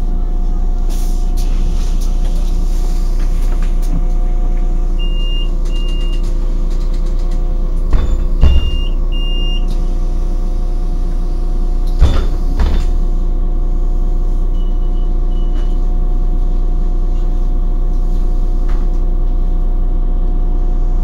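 City bus interior while standing: a steady engine hum runs throughout. Short high electronic beeps sound in pairs a few times, and a few sharp thuds come around the middle.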